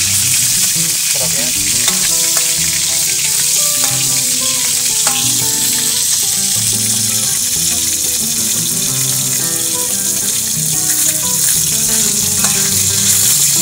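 Frogs frying in hot oil in a wok: a steady sizzle.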